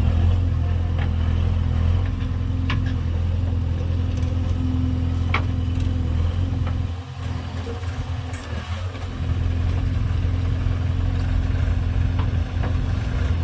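Heavy diesel engine of earth-moving machinery running steadily with a deep, even hum. Its level drops briefly around the middle and then comes back up, with a few faint knocks scattered through.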